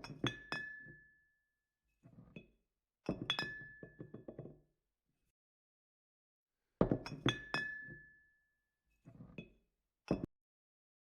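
Crockery clinking, such as a spoon against a coffee cup, in short clusters of sharp clicks with silence between them. One strike just after the start rings on briefly, and another about seven seconds in does the same.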